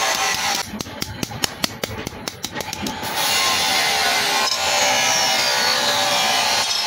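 Metalworking tool noise: a rapid run of small sharp clicks for about two seconds, then a steady loud noisy run of a power tool with a faint falling whine.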